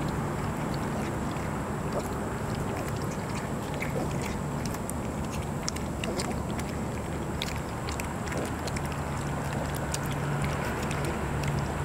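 Several vizsla puppies lapping and slurping wet mush from a metal pan, a busy run of small wet clicks, over a steady low hum.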